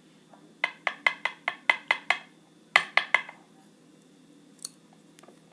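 Brisk series of small hard metallic taps and clicks from a 5-pin lock cylinder being worked over to free its pins, about six a second for a second and a half, then a shorter burst of four.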